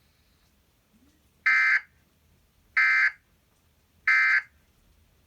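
Emergency Alert System end-of-message signal: three short, loud bursts of the buzzing digital data tones, evenly spaced about a second and a quarter apart, marking the end of the tornado warning.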